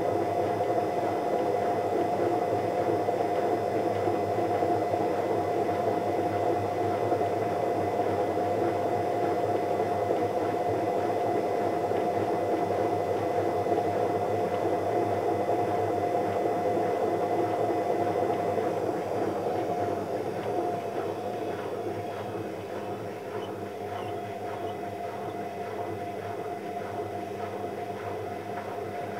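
Steady machine hum with a constant mid-pitched tone over a noisy rumble, dropping somewhat in level about two-thirds of the way through.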